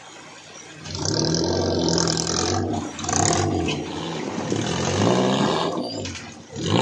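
Off-road 4x4's engine revving hard, its pitch rising and falling repeatedly, starting about a second in after a brief quieter spell.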